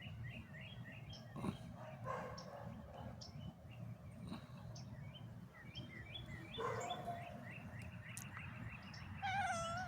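A small bird chirping over and over, about three short notes a second, over faint steady outdoor background noise. Near the end a cat meows once, a short wavering call.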